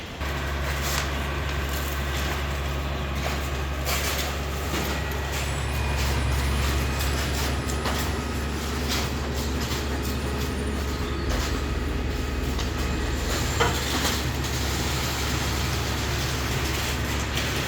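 Heavy construction machinery engine running steadily with a deep, even hum, with scattered knocks and clatter over it.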